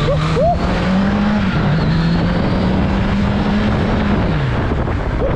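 Kawasaki Z900's 948 cc inline-four running under hard acceleration, rising in pitch, dipping briefly about a second and a half in as it shifts up, then holding steady before easing off near the end. Wind noise rushes over the helmet-mounted camera.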